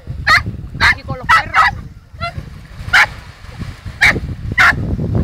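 A dog barking in short, sharp, high yaps while playing, about seven barks spread irregularly, some in quick pairs.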